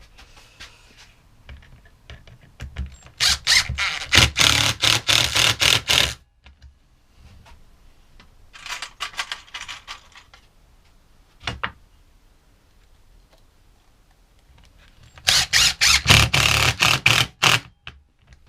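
Two spells of rapid, noisy scraping or rasping strokes, several a second, each lasting about three seconds, with a fainter spell between them and a single knock.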